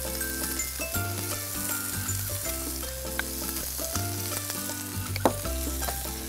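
Chicken, onion and peppers frying in a pan with a steady sizzle, over background music with a repeating melody and bass line.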